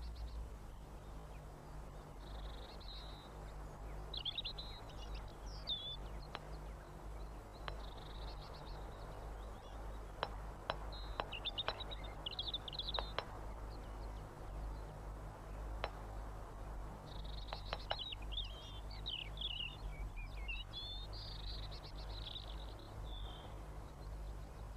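Tits twittering in quick bursts of high calls, with a few sharp taps in between, over a low steady hum.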